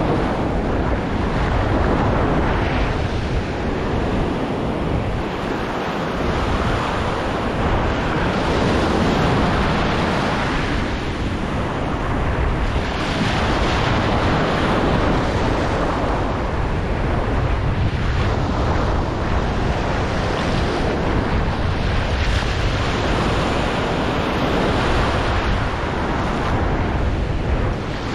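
Surf breaking and washing up the beach, swelling and easing every few seconds, with wind buffeting the microphone.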